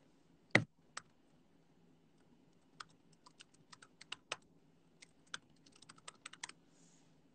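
Keys being typed on a keyboard in scattered, irregular light clicks, with a quick run of keystrokes near the end. One louder knock about half a second in.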